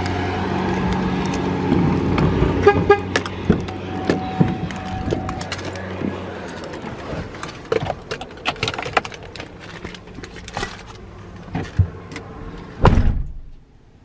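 A vehicle engine idling with a steady low hum, fading out after about six seconds, with a short horn-like tone in the middle. Then scattered clicks and knocks, and a heavy thump about a second before the end.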